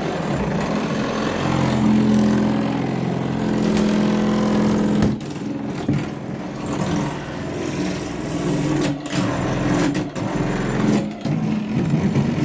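Power drill running steadily as locksmiths drill through a front door, with a few brief breaks.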